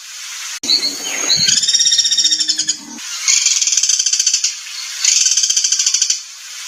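Recorded songbird 'materi kasar' (harsh training song): a stretch of sliding whistled notes with a low tone after a sharp click near the start, then fast, harsh rattling trills repeated about every second and a half.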